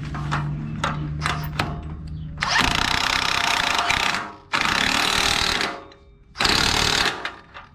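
A power tool run in three bursts, about two, one and a half, and one second long, each a loud even hiss, after a low steady hum with a few clicks.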